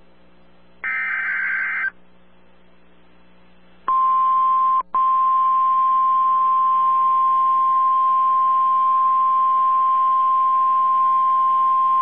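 NOAA Weather Radio emergency alert: a one-second burst of SAME digital header tones, a warbling two-tone data screech, about a second in, then from about four seconds the steady 1050 Hz NWR warning alarm tone, with a brief dropout just after it starts. Together they mark the start of an EAS activation for a tornado warning.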